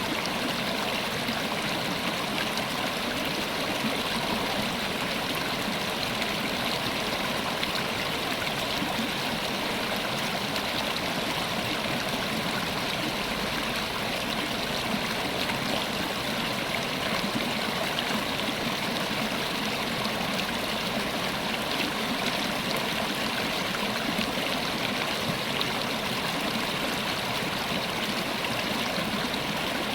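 River water flowing over rocks, a steady rushing and babbling.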